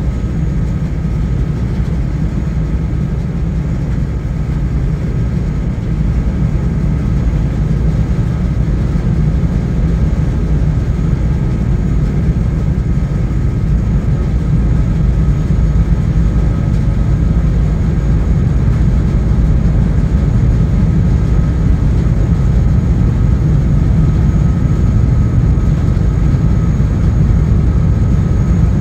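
Steady low engine rumble of a vessel under way, with a faint steady whine above it; it grows slightly louder about six seconds in.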